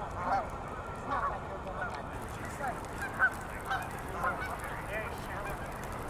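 A flock of geese honking, many short overlapping calls from several birds at once, over a low steady background rumble.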